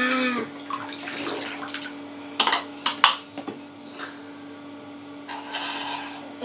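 Water splashing and sloshing in a plastic baby bath as a baby slaps and scoops at it, with a few sharp splashes partway through and a longer swash near the end. A brief baby vocal sound right at the start, and a steady low hum underneath.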